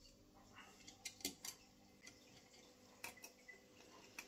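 Faint, scattered light clicks and metallic taps of an Allen key and small screws being handled while fastening a resin 3D printer's metal case back together.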